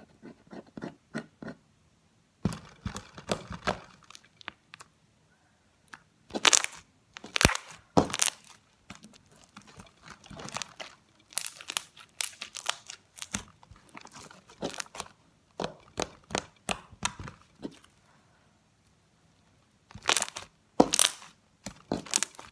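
Hands squeezing and kneading a soft fluffy slime made with shaving foam, giving irregular runs of wet crackling and popping clicks with short pauses between.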